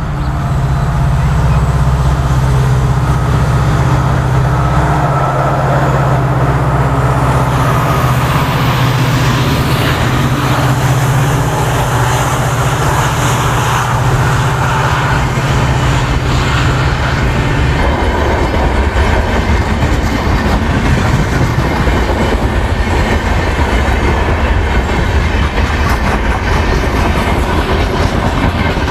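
Diesel-hauled passenger train passing at close range. The locomotive's engine drone is strong and steady until it has gone by, about eighteen seconds in. After that the coaches' wheels rumble and click over the rail joints.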